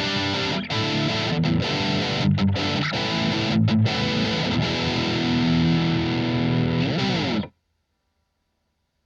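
Electric guitar played through a Blackstar ID:Core Stereo 40 modelling amp on a distorted setting, chords and notes ringing at a steady loud level. It stops abruptly about seven and a half seconds in.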